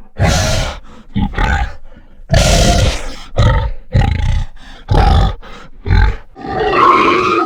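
Boar sound effect made as a monster boar's voice: a run of short, loud grunts about once a second, then a longer call that swells near the end.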